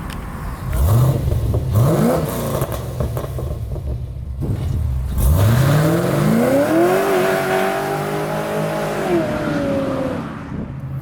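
6.0-litre LS V8 in a 1990 Chevy Caprice revving: two quick blips about a second apart, then a longer rev that climbs, holds high for a couple of seconds and falls away.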